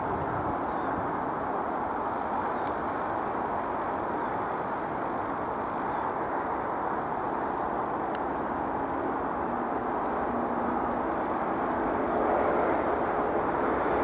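Steady rushing outdoor background noise with no distinct calls, growing a little louder with a faint low hum near the end.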